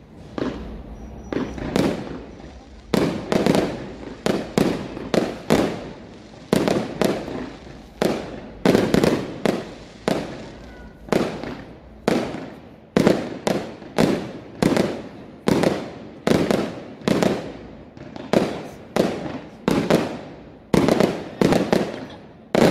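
Fireworks display: aerial shells bursting overhead in a steady series of loud bangs, about two a second, each trailing off in a short echo.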